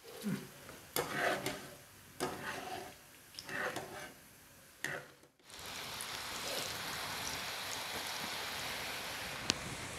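A metal slotted spoon clatters and scrapes against a plate as freshly fried rice-flour murukulu strands are laid out. About halfway through it changes to the steady hiss of hot oil deep-frying dough freshly pressed into the pan, with one sharp click near the end.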